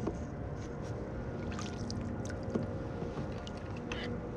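Reeling a small fish up to a sit-on-top kayak: steady water and handling noise around the hull, with a few small clicks as the fish is brought aboard on the line.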